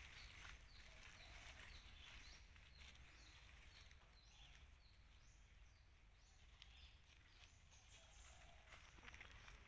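Near silence outdoors, with faint, repeated short falling chirps of small birds over a low rumble.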